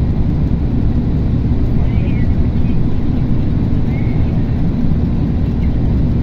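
Steady low rumble of road and tyre noise, heard from inside a vehicle driving at highway speed.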